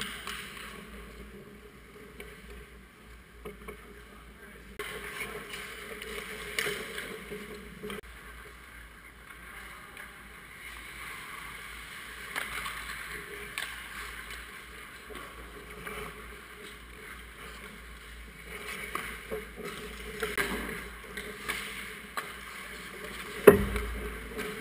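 Ice hockey skates scraping and gliding on rink ice, with scattered stick and puck clacks. One loud sharp crack comes about a second before the end.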